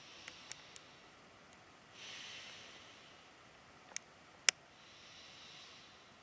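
Quiet breathing of a sleeping person: two soft, slow breaths with no snoring. A couple of small clicks come about four seconds in.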